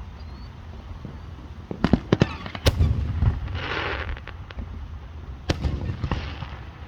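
Fireworks going off: a quick run of sharp bangs about two seconds in, a burst of hissing crackle just after, and another single bang near the end.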